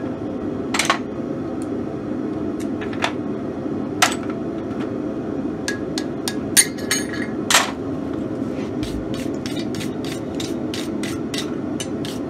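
Hand hammer striking steel letter stamps into red-hot steel on an anvil: a few single hard blows spaced a second or so apart, the loudest about six and a half seconds in, then a quick even run of lighter hammer strikes, about three a second. A steady low rush runs underneath.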